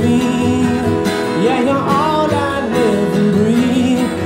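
Live band music: strummed acoustic guitar and keyboard under a male voice singing a gliding, wordless melody line.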